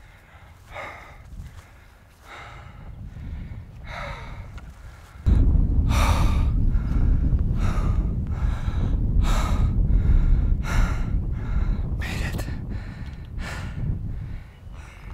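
A person breathing hard in quick, heavy breaths, a little under a second apart: a hiker out of breath from exertion. About five seconds in, a loud low rumble starts abruptly and carries on under the breathing.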